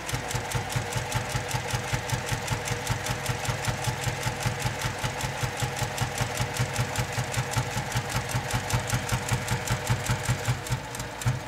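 Domestic sewing machine running steadily, the needle stitching through the layers of quilt fabric with a fast, even clatter over the motor's hum; it stops near the end.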